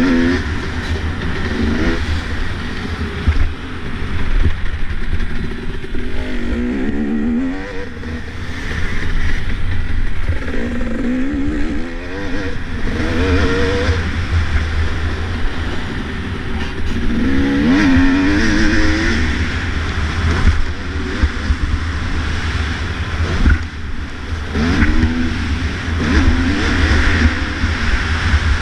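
Dirt bike engine revving hard and rising in pitch again and again as it accelerates and shifts through the gears, easing off between pulls. Heavy wind buffeting on the helmet-mounted microphone rumbles underneath.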